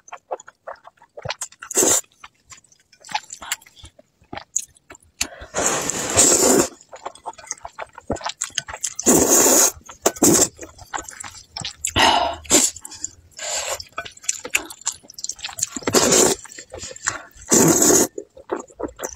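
Noodles in a sticky sauce slurped loudly into the mouth, several long slurps of about a second each, with wet chewing and smacking clicks between them.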